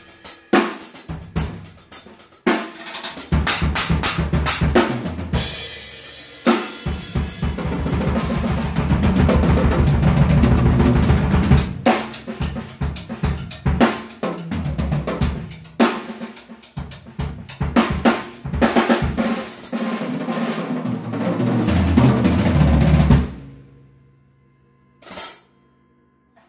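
Drum solo on a Mapex Black Panther acoustic kit with Zildjian cymbals and a Meinl stack: fast fills and rolls across snare, toms and bass drum with cymbal crashes, with long dense stretches heavy in the low end. It stops suddenly about 23 seconds in and rings off, followed a second or so later by one lone hit.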